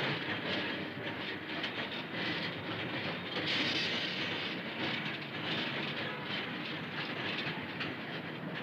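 Electric tram cars running along street rails, their wheels rattling and clacking steadily, with a brighter hissing stretch about three and a half seconds in.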